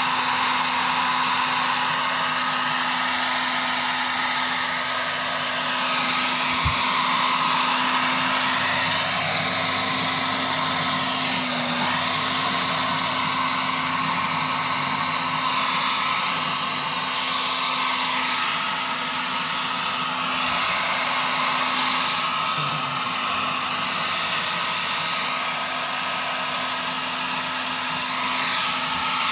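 Hair dryer running continuously, blowing hot air into a freezer to melt the frost, its rushing tone shifting slowly as it is moved around.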